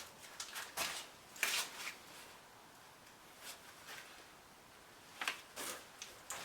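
Plastic spreader scraping body filler across a body panel in short strokes: several quick scrapes in small clusters, a second or two apart.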